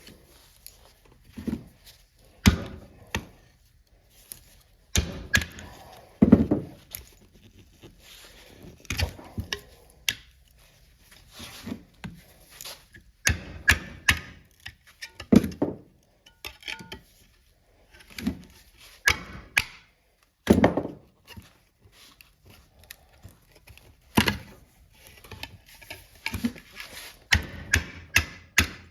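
Metal tools knocking, clattering and scraping against a well pump while its motor section is pried apart: a couple of dozen irregular knocks, some in quick clusters, with scraping between them.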